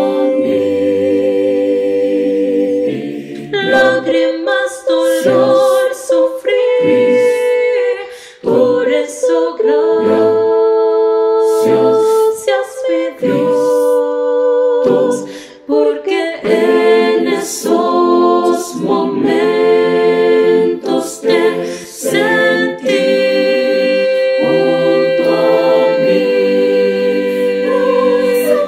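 Mixed choir of men's and women's voices singing a Spanish hymn a cappella, holding long chords on 'aquí' and 'mi Dios' with short breaks between phrases, then starting 'gracias' near the end; many separately recorded voices are mixed into one virtual choir.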